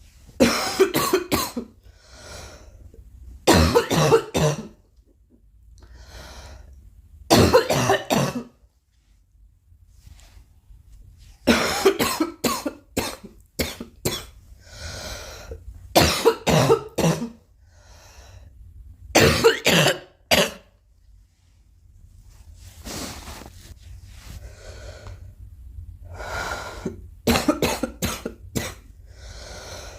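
A girl coughing in repeated fits of several quick coughs each, a fit every few seconds, with fainter breaths drawn in between.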